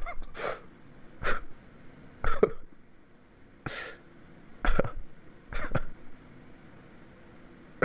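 A man's short, breathy bursts of sound into a close microphone, about six of them roughly a second apart.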